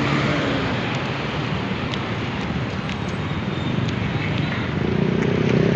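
Street traffic noise: motor vehicles passing close by, a steady rush of road and engine sound that swells near the end.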